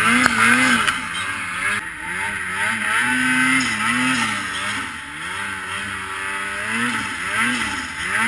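2022 Ski-Doo Freeride 850 Turbo snowmobile's two-stroke engine revving up and down repeatedly as the throttle is worked in deep powder, its pitch rising and falling about once a second. A steady rushing noise runs underneath.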